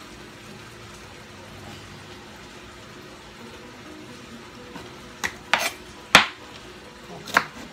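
A pot boiling quietly and steadily, then, from about five seconds in, a few sharp knocks of a kitchen knife on a plastic cutting board as a small onion is cut.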